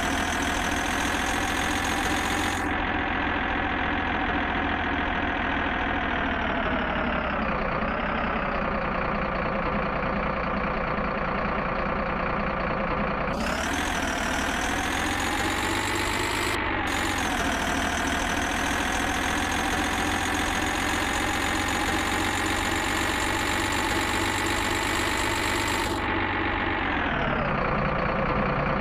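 A steady engine-like running sound with a dense, even pitch. Its pitch sinks slowly twice and rises once, like a machine working under changing load.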